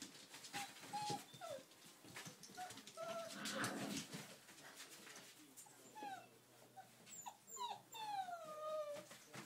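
Six-week-old puppies whimpering and yipping in many short high calls, with one longer falling whine near the end. Light clicks and rustles run underneath.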